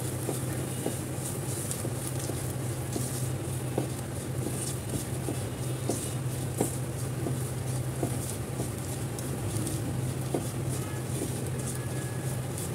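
Ground spices, onion and garlic frying in oil in a nonstick kadhai, sizzling softly while a silicone spatula stirs and scrapes through them with small scattered taps on the pan. The masala has gone a little dry in the pan. A steady low hum runs underneath.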